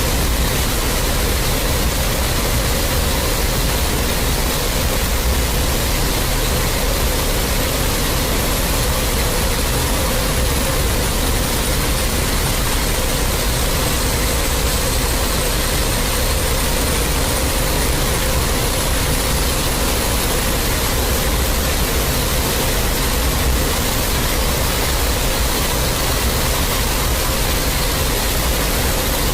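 Loud, steady static-like rushing noise with a hum underneath and a thin, very high whistle that slowly falls, climbs back up, and starts falling again near the end.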